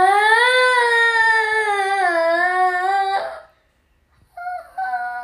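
A young girl singing one long, drawn-out note whose pitch wavers up and down for about three seconds before it breaks off. About a second later come a few shorter sung notes.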